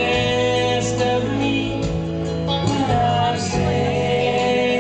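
Live band music: an electric guitar playing over long held chords.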